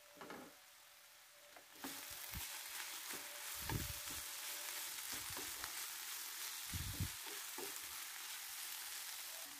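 Grated carrot, onion and green pepper sizzling in oil in a frying pan while a wooden spatula stirs them, with a few dull knocks of the spatula against the pan. The sizzle starts about two seconds in and then runs steadily.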